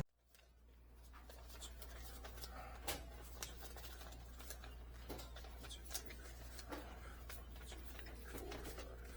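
Quiet indoor room tone: a steady low hum with scattered faint clicks and taps. The sound drops out abruptly at the start and the room noise comes back gradually over the next second or so.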